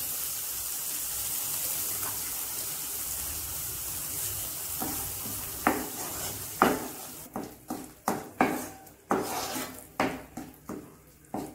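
Masala sizzling in a nonstick frying pan with the heat just turned off, the sizzle fading about halfway. Then a spatula scrapes and taps against the pan in quick separate strokes as curd is stirred into the masala.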